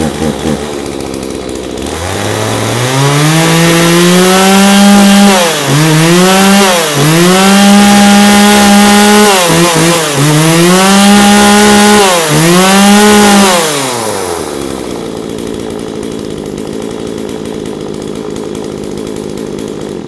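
Kioritz Echo two-stroke chainsaw idling, then revved to full throttle for about twelve seconds with several quick dips in between. It drops back to idle and is shut off right at the end, a demonstration run showing that the saw starts and runs.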